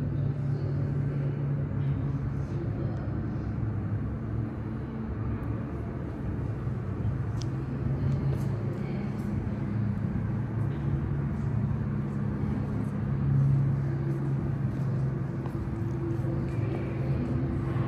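Steady low droning hum, swelling slightly about thirteen seconds in, with faint scattered clicks over it.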